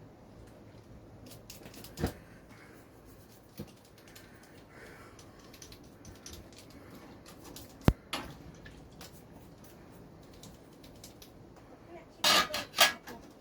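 Small metal carburettor parts being handled on a bench, giving scattered clicks and knocks: a sharp click about eight seconds in and a quick run of loud clacks near the end.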